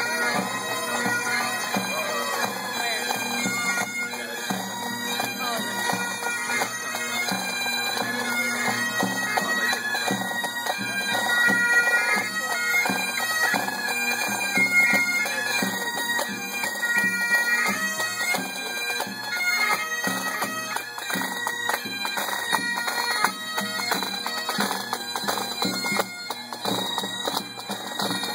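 A pipe band of several bagpipes playing a marching tune, the steady drones sounding under the chanter melody. It grows a little louder in the middle as the pipers pass closest.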